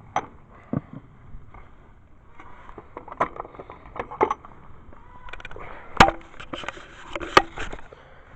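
Irregular clicks and metal clanks of hand tools and bolts as an engine is bolted down onto a lawn mower deck, with two loudest knocks about six and seven seconds in.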